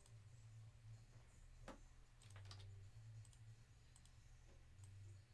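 Near silence over a low steady hum, with a few faint computer mouse clicks about two seconds in.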